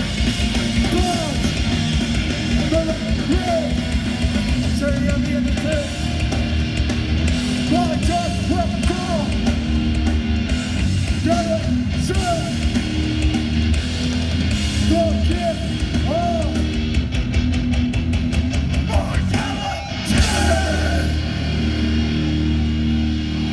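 Hardcore band playing live and loud: distorted electric guitars, bass and drums, with some shouted vocals. About twenty seconds in, the music briefly drops out, then crashes back in.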